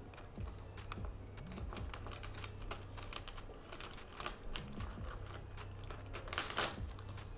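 Irregular light clicks and taps over a low steady hum.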